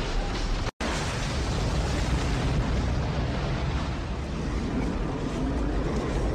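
Loud, steady roaring rumble of a simulated tornado: dense wind-like noise, heavy in the low end. It drops out to silence for an instant under a second in.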